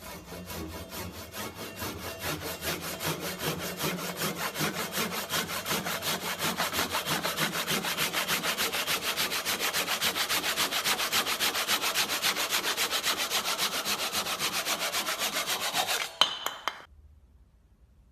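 Fast back-and-forth hand strokes rubbing on freshly cleaned sandpaper, about four a second, steady and even. A sharp knock near the end, then the rubbing stops.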